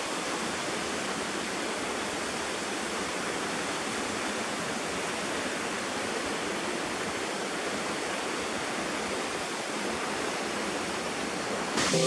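Waterfall: a steady, even rush of water pouring down a rock face.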